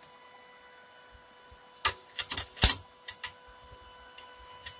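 Screwdriver tip tapping and scraping on the inverter welder's output terminal bars, a few sharp metallic clicks starting about two seconds in, the loudest one in the middle. There is no arc: the shorted output draws no spark because the welder is giving no output.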